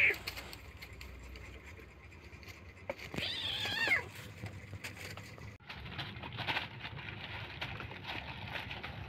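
A kitten meows once, about three seconds in: a single drawn-out cry of nearly a second that rises and then falls in pitch. In the second half, crinkly rustling of a plastic bag comes as kittens tussle on it.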